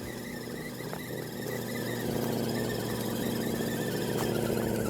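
Axial SCX10 RC crawler's electric motor and gear drivetrain whining steadily under load as it climbs, getting louder about a second and a half in.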